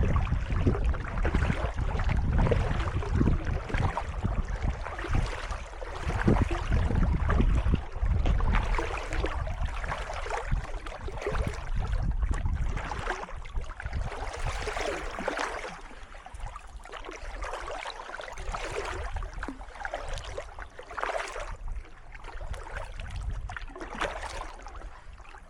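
Kayak paddle strokes splashing in calm canal water, repeated splashes over a steady wash of water. A low rumble through the first half fades away after about the middle.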